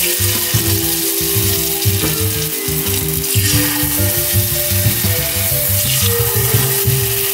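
Batter sizzling in hot oil as it is ladled into the wells of a bánh khọt (Vietnamese mini pancake) mold, with background music.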